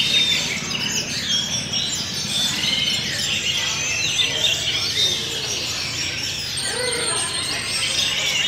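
Orange-headed thrushes singing, many caged birds at once, in a dense mix of overlapping whistles and chirps. A thin, steady, high tone joins in during the last two seconds.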